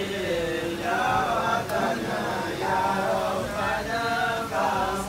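A group of men chanting prayers together in a continuous sung recitation, the phrases running one into the next.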